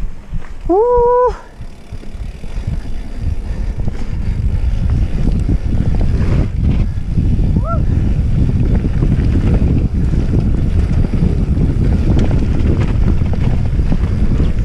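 Wind buffeting a mountain bike's action-camera microphone over the rumble and rattle of tyres rolling down a dirt trail. About a second in a rider lets out a short rising whoop, and a brief rising yelp comes near eight seconds.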